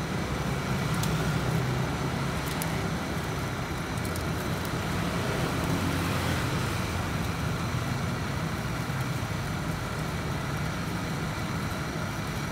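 Steady low rumble of road traffic, with a few light clicks of metal tongs against the grill.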